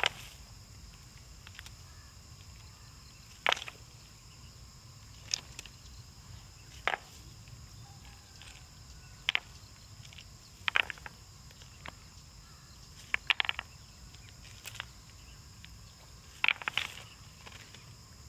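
Short, sharp knocks and clacks at irregular gaps of one to two seconds, sometimes two or three in quick succession. Under them runs a steady high-pitched drone of insects.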